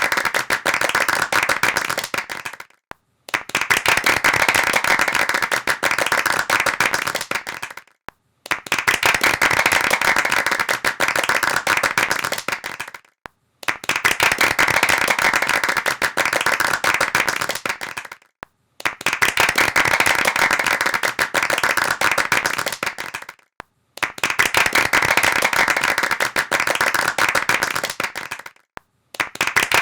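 Hands clapping fast and densely, like applause, in repeated bursts of about five seconds. Each burst stops abruptly, with a short silence before the next.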